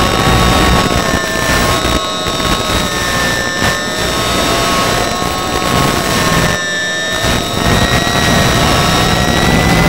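Ultra Micro Icon A5 RC plane's electric motor and propeller whining in flight, heard from on board over rushing wind. The pitch wavers a little up and down with the throttle, and the sound briefly dips out a few times.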